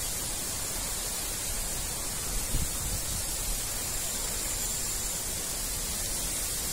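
Heavy cyclone rain falling steadily on paving and buildings, a constant hiss. A brief low rumble comes about two and a half seconds in.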